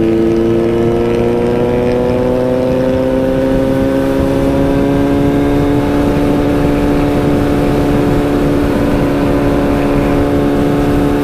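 Kawasaki Z900's inline-four engine and exhaust running under steady throttle, its pitch rising slowly and evenly as the bike gains speed.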